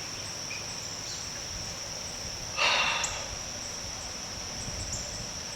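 Crickets and other insects droning steadily at a high pitch, with a short breath close to the microphone about two and a half seconds in.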